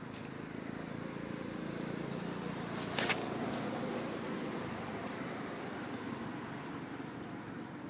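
Outdoor background: a steady high-pitched whine over a low rumbling haze, with one sharp click about three seconds in.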